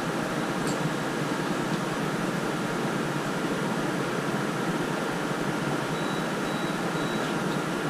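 Steady whooshing noise like a running fan, even and unchanging throughout.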